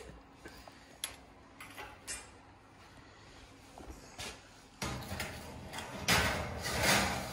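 Light knocks and clinks as a foil-lined roasting tray is handled. Then, about six seconds in, a louder scraping rush lasting about a second as the metal tray is slid onto the oven rack.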